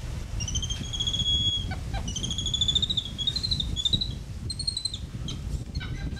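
A run of high, clear whistled animal calls, each rising slightly in pitch, from about half a second in until about five seconds in, over a steady low rumble.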